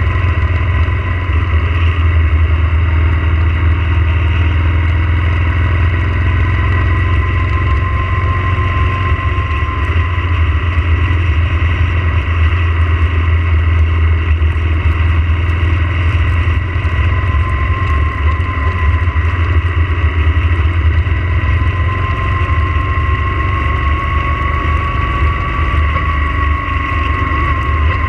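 Yamaha motorcycle riding on a wet road: a loud, steady low rumble of wind on the microphone and engine, with a faint whine that slowly rises and falls in pitch a couple of times.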